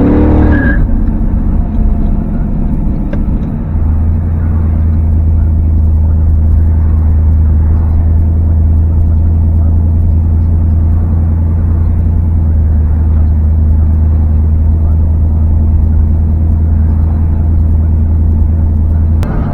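LS V8 engine of a 1987 Camaro heard from inside the cabin. It finishes a rise in revs in the first second, then runs at a steady, even speed until just before the end.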